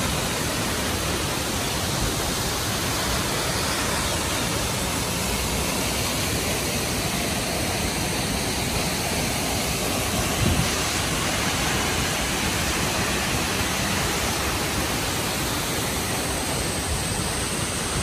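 Dambri Falls, a tall waterfall, pouring into its rocky plunge pool: a loud, steady rush of falling water with no rise or fall.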